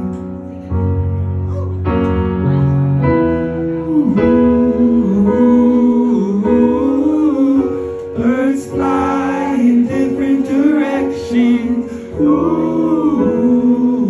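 Live ballad: a man singing over piano accompaniment. Piano chords carry the first few seconds, and the voice comes back in about four seconds in.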